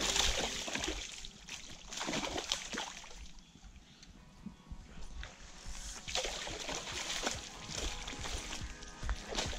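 A hooked fish thrashing and splashing in shallow water at the surface, in bursts, with a quieter lull in the middle.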